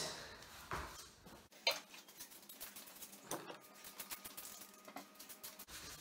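Faint scattered clicks and light rattles of a road bicycle being lifted and moved by hand.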